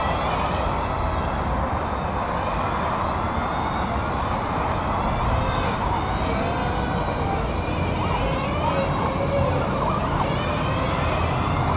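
Axial 1/10-scale RC crawler's electric motor and gearbox whining, the pitch rising and falling with the throttle as it climbs over rocks, over a steady rumble and hiss.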